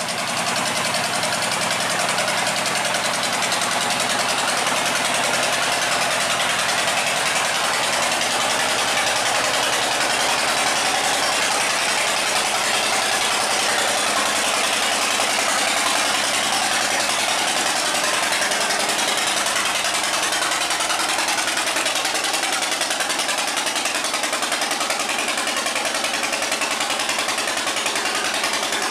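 Wooden boat's diesel engine running hard and steady under heavy load, pushing the boat against a strong current, over churning water.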